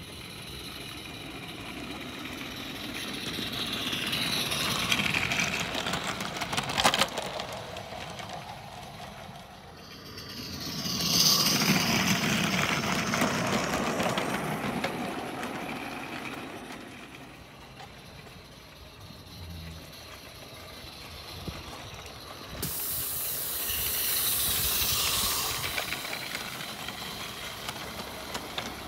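Live-steam garden-railway locomotive hauling wagons past close by, its steam hissing with the wagons' wheels rattling over the rail joints. The sound swells and fades three times as the train draws near and goes by.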